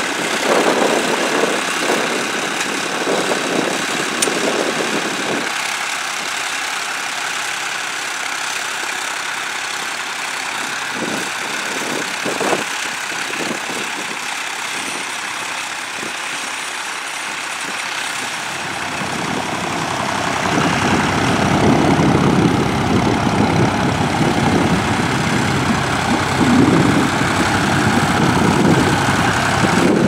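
Vintage Massey Ferguson tractor engine running steadily while pulling a mounted plough through the soil. The sound grows louder and fuller about two-thirds of the way through.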